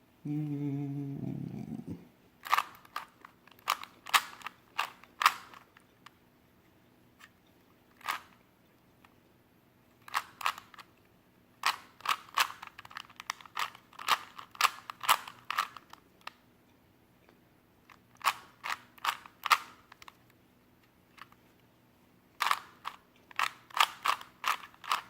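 Plastic Rubik's Cube layers being twisted by hand, clicking sharply in quick runs of turns separated by pauses of a few seconds.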